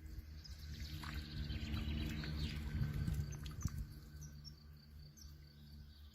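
Small birds chirping and twittering in short, high calls over a low steady rumble.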